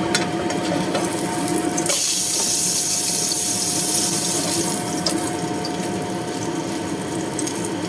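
Oil sizzling steadily in a frying pan under a fan's hum; the hum drops away about two seconds in and the sizzle turns brighter and hissier, with a few small ticks.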